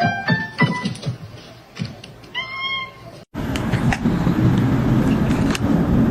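A quick rising run of short musical notes, then a single domestic cat's meow about two and a half seconds in. After a sudden cut, a steady, noisy rumble fills the rest.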